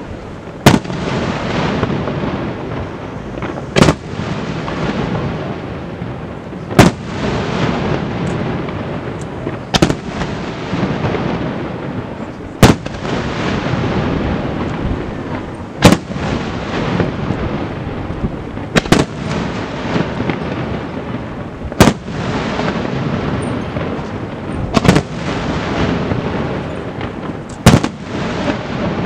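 Aerial firework shells bursting: a sharp loud bang about every three seconds, evenly spaced, over a continuous din of lesser bursts between them.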